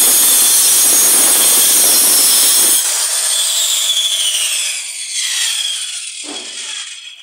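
Handheld electric disc saw cutting through a wooden board. The cut ends about three seconds in, and the motor then winds down with a falling whine. A single knock comes near the end.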